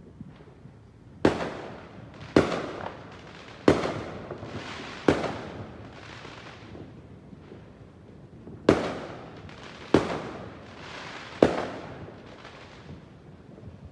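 Fireworks going off: seven sharp bangs, each trailing away over about a second. Four come in quick succession, then after a short pause three more.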